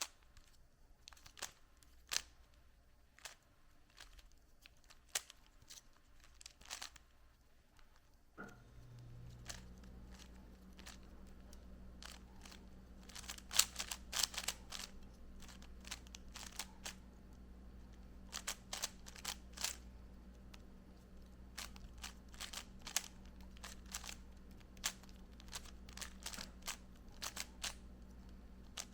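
Rubik's Cube being turned quickly by hand: its plastic layers clicking and clacking in irregular runs of fast turns, sparse at first and denser later. A steady low hum comes on about eight seconds in.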